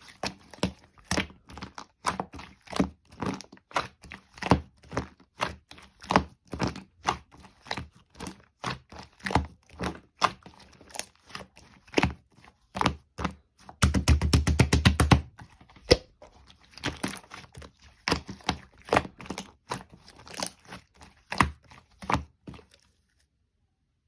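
A close series of sharp taps, knocks and crackles, about two or three a second. About 14 seconds in they run together into a fast, dense rattle with a low thud, then go back to single taps and stop about 22 seconds in.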